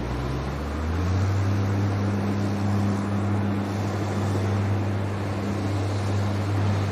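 Amphibious Combat Vehicle's diesel engine droning steadily as it heads out through the surf, over the wash of breaking waves. The engine note steps up about a second in.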